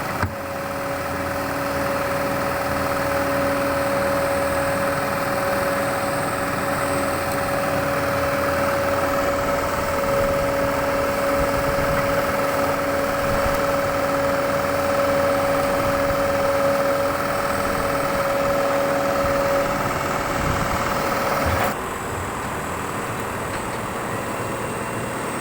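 Hydraulic excavator's diesel engine running steadily, with a constant hum of several steady tones; about 22 seconds in, the sound changes abruptly and becomes a little quieter.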